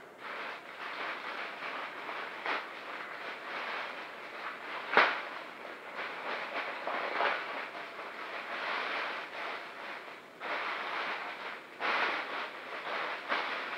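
Plastic packaging crinkling and rustling as a parcel is unwrapped: a black plastic mailing bag and the clear plastic wrap around a backpack are handled and pulled apart. One loud, sharp crack comes about five seconds in.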